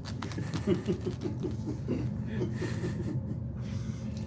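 Soft chuckling: a quick run of short laughing pulses, about seven a second, lasting a couple of seconds.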